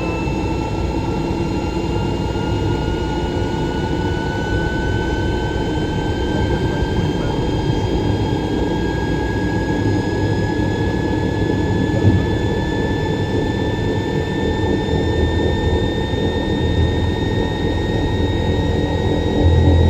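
Matsuura MAM72-100H horizontal machining center running: a steady mechanical hum under a high whine that climbs slowly in pitch, with one short knock about twelve seconds in.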